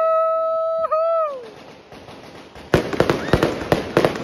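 A loud, held high-pitched tone lasting about a second and a half, falling away at its end. After a short lull, firecrackers go off in a rapid, crackling string of sharp bangs, several a second, from about two-thirds of the way in.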